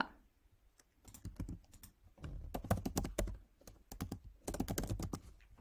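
Typing on a computer keyboard: a few scattered key presses, then two quick runs of key clicks, each about a second long.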